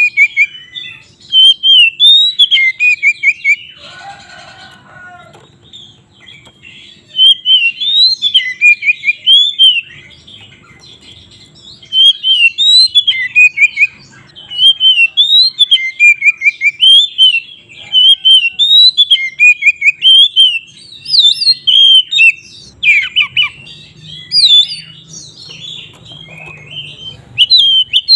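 Oriental magpie-robin (kacer) singing loud, fast bouts of quick whistled notes, with short pauses between bouts. A brief, lower, noisier sound comes about four seconds in.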